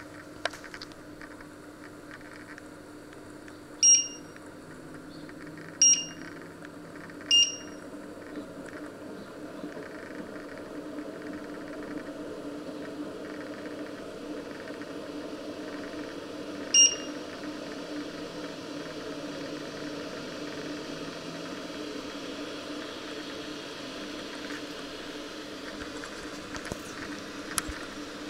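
Touch-control panel of a glass-ceramic hob beeping as its keys are pressed to set the heat level and timer. There are four short, high beeps, three close together and a fourth about ten seconds later, over a steady low hum.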